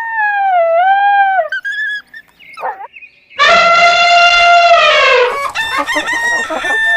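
Rooster crowing: one long loud crow of about two seconds that falls in pitch at its end, with a shorter call before it and several shorter overlapping calls after it.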